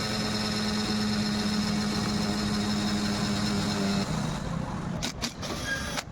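Mixer grinder motor running with a steady hum and a high whine, which cuts off about four seconds in, followed by a few sharp clicks.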